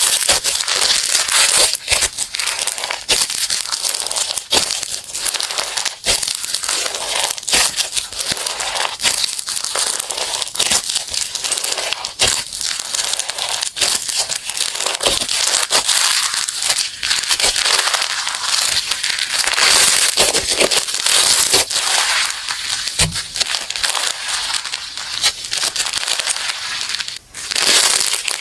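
Slime being squished and pressed by hand: a dense, continuous run of crackling, clicking and popping.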